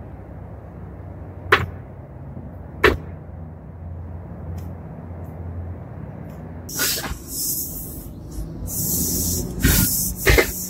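A small van's rear hatch being pulled down and shut: two sharp thumps about a second apart. From about two-thirds of the way in, rubbing, scraping and a few knocks as the camera is picked up and handled.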